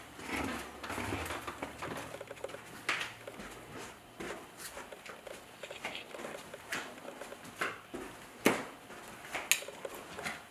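Footsteps of someone walking through empty rooms: irregular knocks and taps, about one a second, the loudest two near the end.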